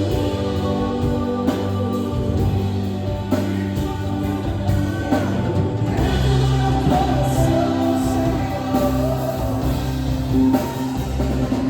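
Contemporary gospel worship music: a band with bass, sustained chords and a steady drum kit beat, with sung vocals.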